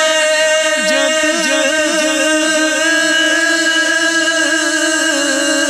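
Devotional naat singing: a voice draws out a long, wavering held note over a steady sustained drone.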